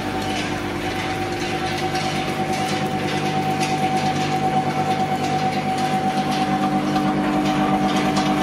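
Bouillon cube wrapping machine line running: a steady motor hum with a fast, even clicking from the wrapping mechanism.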